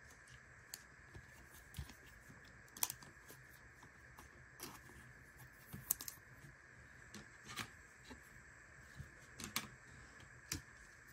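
Irregular light clicks and rustles of trading cards being handled and slid into a clear plastic penny sleeve, a dozen or so small snaps of varying loudness over a faint steady hum.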